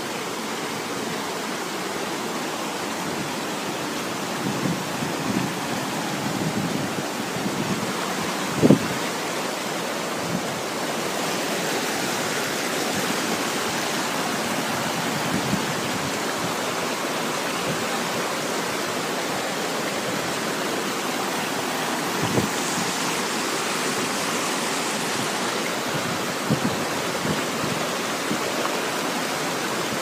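Fast mountain stream rushing steadily over rocks, a constant even roar of water. A few short thumps stand out above it, the loudest about nine seconds in.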